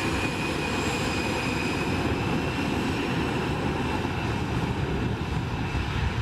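Steady mechanical running noise with a faint high whine that drifts slightly in pitch, from a small motor or engine.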